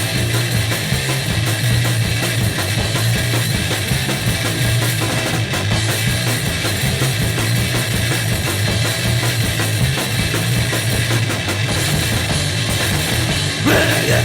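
Noisecore/grindnoise music: a loud, dense, unbroken wall of distorted noise over drums. Near the end a rising sweep cuts in.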